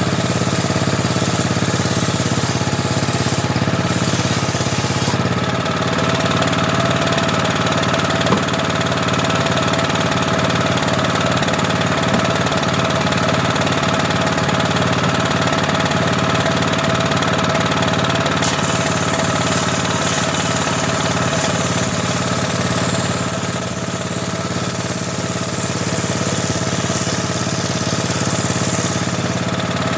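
Homemade table saw running steadily with a constant mechanical hum, its blade ripping teak. The high hiss of the cut fades out after a few seconds and comes back twice later.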